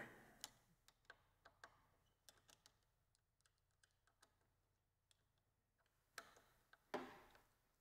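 Faint, scattered ticks and clicks from a hand tool loosening the clip-on handlebar clamp bolt on a Suzuki GSX-R1000, with a short, slightly louder rustle about seven seconds in.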